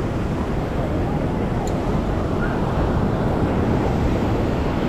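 Steady wind rumbling on the microphone over the continuous wash of surf at the water's edge.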